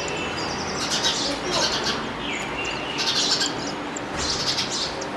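Small birds chirping and chattering in short bursts of rapid high notes, several times, over a steady background hiss.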